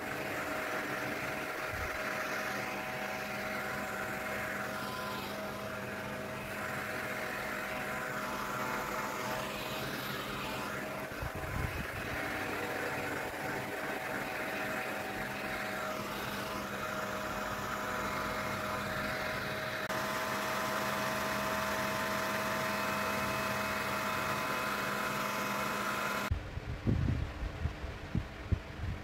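Steady mechanical hum with several held tones over a soft hiss, and a few soft knocks near the end.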